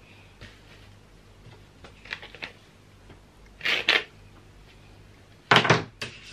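A hairbrush swept through the hair of a wig on a mannequin head: two short brushing strokes about two seconds apart, over faint handling rustles.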